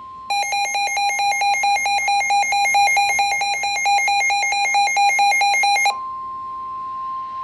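Rapid electronic alarm beeping for about five and a half seconds, then a single steady alert tone, the long warning alarm tone that NOAA Weather Radio sends ahead of a severe thunderstorm warning.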